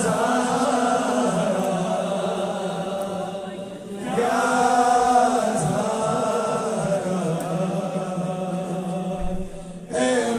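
Male voices chanting a manqabat, a devotional Shia song, into microphones in long held phrases over a steady low drone. There is a short break about four seconds in, and another near the end.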